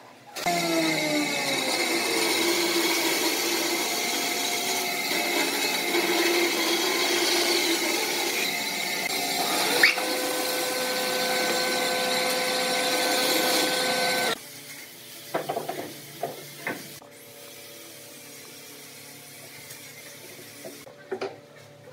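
Band saw running and cutting through a pine block, a loud steady machine sound with several held tones, which stops abruptly about two-thirds of the way through. A few light knocks follow against a quiet background.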